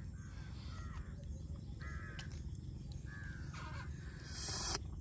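Crows cawing, several separate caws, over a steady low rumble. A little after four seconds in, a brief loud rush of hiss stands out above them.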